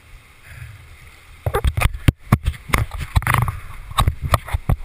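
A run of irregular sharp knocks and scrapes right against a helmet-mounted camera, starting about a second and a half in, over a faint wash of river water.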